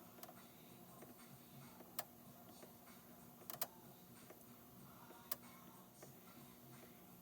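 Faint playback of a faulty cassette tape in a cassette deck, a steady low hum broken by a few sharp clicks, two of them close together in the middle. The cassette itself runs with speed trouble, squeaking and warbling.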